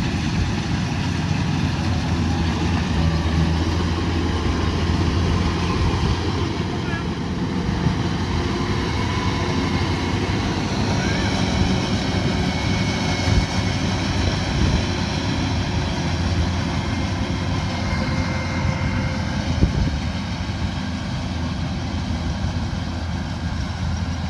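Kubota DC105X combine harvester running steadily as it harvests rice, its diesel engine and threshing machinery going together, with a higher whine through the middle part.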